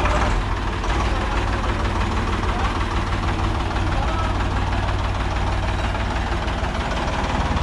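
Ford 3000 tractor's three-cylinder engine running steadily with a fast, even chug as the tractor is driven slowly forward.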